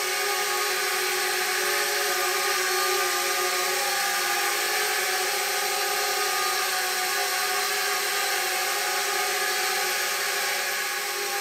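Eachine E52 pocket quadcopter's four small motors and propellers whirring as it hovers on altitude hold, a steady whine of several even tones that holds one pitch throughout.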